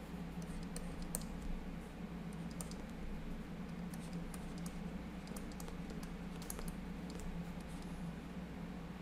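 Light, irregular taps and scratches of a stylus writing on a pen tablet, over a steady low hum.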